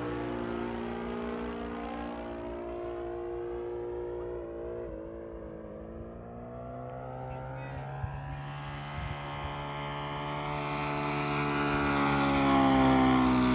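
Single-cylinder gasoline engine (O.S. GF40) of a large-scale RC F8F Bearcat model in flight, its propeller note wavering in pitch as the plane manoeuvres. It fades as the plane moves away, then grows loud near the end as it comes close.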